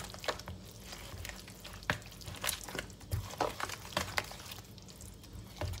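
Wooden spoon stirring and folding a thick, wet mixture of minced fish, coconut milk, egg and red curry paste in a plastic bowl. It makes irregular squelches and sharp little clicks.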